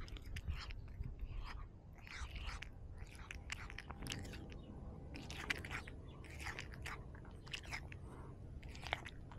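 Irregular crunching and rustling right by a cat-worn camera, one or two crisp crackles a second over a low steady rumble.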